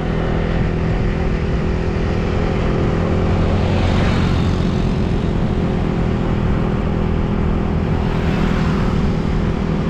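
A vehicle engine running steadily with road and wind noise, heard from on board while travelling, with a brief swell of hiss about four seconds in.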